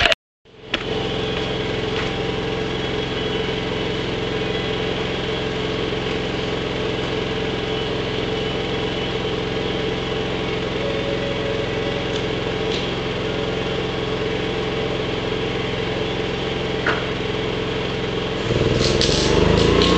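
Small engine running steadily at a constant speed. About a second and a half before the end, a louder machine noise joins in.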